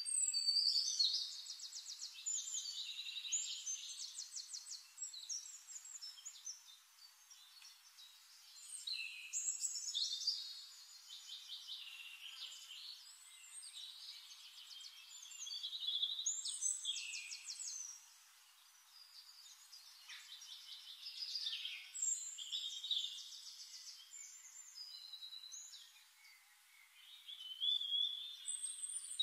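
Songbirds singing: phrases of rapid high trills and chirps, a new phrase starting every few seconds.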